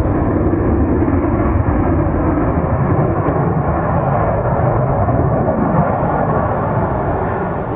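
Aircraft engine rumble, loud and steady, beginning to fade near the end.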